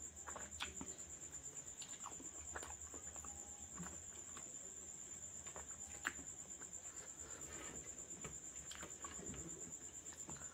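Eating sounds of a man eating rice and curry by hand: chewing, lip smacks and soft sticky clicks of fingers and mouth, the sharpest about six seconds in. A steady high-pitched trill sits underneath.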